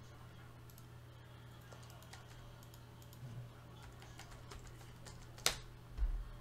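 Faint, scattered keystrokes on a computer keyboard over a steady low hum, with one sharper click about five and a half seconds in and a low thump just after it.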